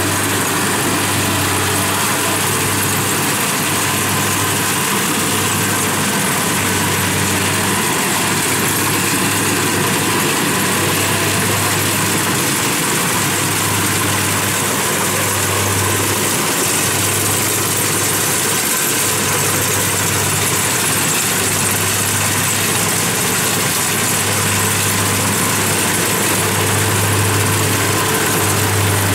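Kubota DC-70 rice combine harvester's diesel engine running steadily under load as it cuts and threshes rice, a constant low drone with a steady high hiss over it.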